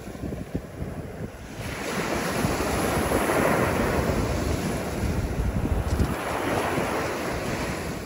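Ocean surf: a small wave breaking and its foam washing up the sand-and-pebble beach, the wash swelling about two seconds in and easing off near the end. Wind rumbles on the microphone throughout.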